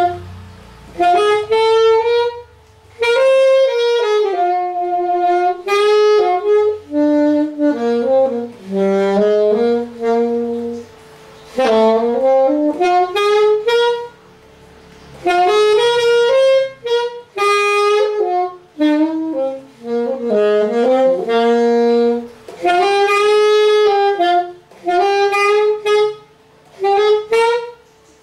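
Yamaha YAS-280 alto saxophone playing a melody, phrase after phrase of changing notes with short breaks for breath between them.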